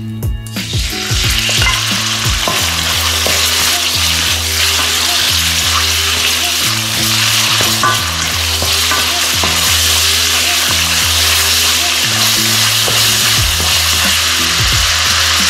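Diced pork neck dropped into hot oil in a wok, sizzling and frying as it is stir-fried with a wooden spatula. The sizzle starts suddenly about half a second in and then runs on steadily.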